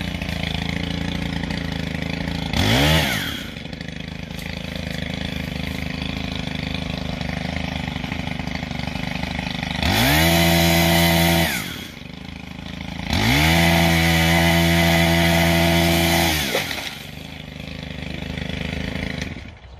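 Stihl HT 131 pole saw's small 4-MIX engine idling steadily, revved up to full throttle three times: a short blip about three seconds in, then runs of nearly two seconds and about three and a half seconds, each rising and falling in pitch. It cuts out near the end.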